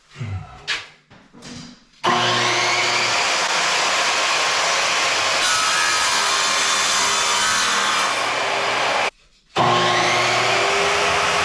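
A power saw cuts tile, its motor running steadily. It starts about two seconds in, stops briefly near the end and starts again. A few light handling clatters come before it.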